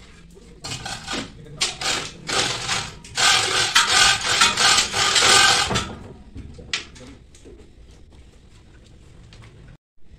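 Rubbing and scraping noise in a run of irregular bursts lasting about five seconds, then fading to a low background. It comes from the paper-wrapped transformer core and coil assembly being handled as it hangs over its tank.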